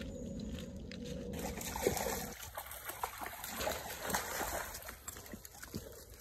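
Shallow stream water trickling, with a run of short splashes from about two to five seconds in.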